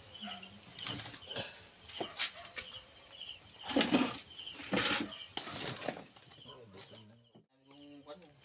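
Crickets chirping steadily, over a wood cooking fire that gives irregular crackles and short whooshing bursts. The sound drops out briefly near the end.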